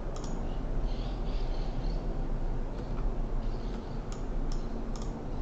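A few light computer-mouse clicks over a steady low hum, three of them close together near the end.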